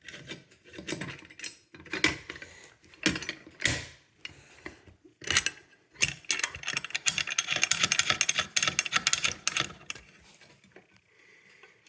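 Hand-worked fire alarm hardware clicking and knocking, then a dense run of rapid ratchet-like rattling for about three seconds, while a device is being reset by hand.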